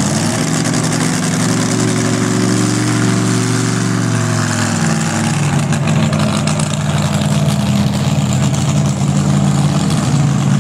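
Pickup truck's engine working hard while pulling a weight sled, its pitch easing down over the first four seconds or so, then running steady at a lower pitch.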